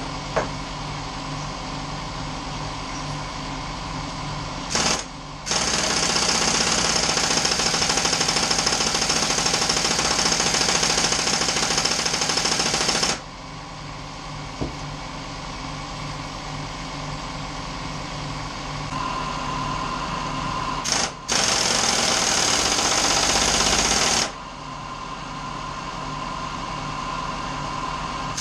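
Air impact wrench running on the motorcycle's fasteners: a short blip about five seconds in, then a run of about eight seconds, and another blip followed by a run of about three seconds later on. A steady hum sits underneath throughout.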